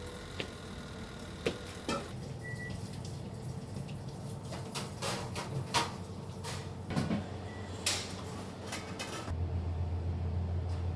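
Scattered clicks, taps and knocks of food-preparation work in a restaurant kitchen, over a steady low hum. A louder low hum sets in about nine seconds in.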